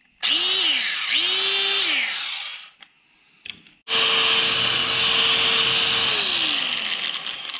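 Makita angle grinder with freshly replaced gears and a newly greased gear head, test-run: two short blips that spin up and wind down, then a longer run at a steady whine that winds down near the end. It runs smoothly.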